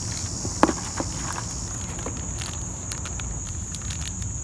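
Insects chirring outdoors as a steady high-pitched drone, with light rustles and clicks of plastic lure packaging being handled in a cardboard box. A sharp knock about half a second in is the loudest sound.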